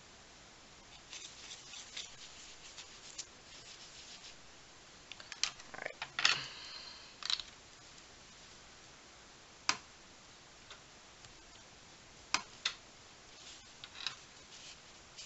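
Art tools handled at a desk: faint scratching of a brush and pencil on the journal paper, then a scatter of sharp clicks and taps as the pencil and brush are set down and picked up. One tap about six seconds in is the loudest and has a short ring.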